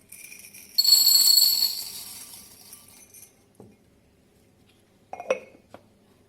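A bright clink of struck metal or glass, ringing with several high tones that fade over about two seconds, followed by a few light knocks.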